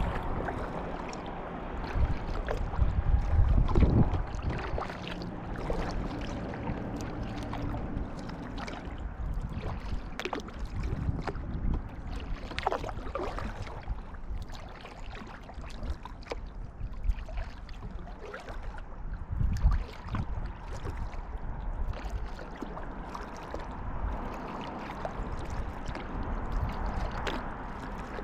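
Kayak paddled through calm water: paddle blades dipping and splashing, water dripping and lapping against the hull. Stronger low thumps come twice, about three seconds in and again about twenty seconds in.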